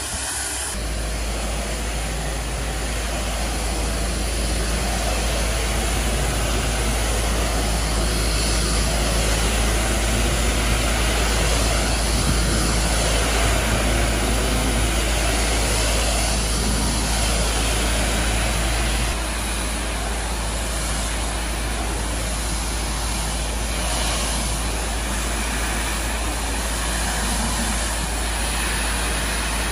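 Doff superheated steam cleaner lance spraying onto concrete patio tiles: a steady jet hiss with a low rumble underneath. The rumble drops in level about two-thirds of the way through.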